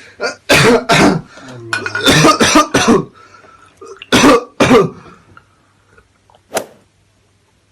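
A man coughing badly in harsh fits: a pair of coughs about half a second in, a longer run of coughs from about two to three seconds, another pair just after four seconds, and one short cough near the end.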